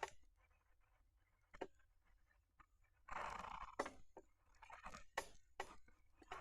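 Faint scratching and tapping of a marker drawing on paper, with short quiet gaps between strokes; a longer scratchy stretch about three seconds in.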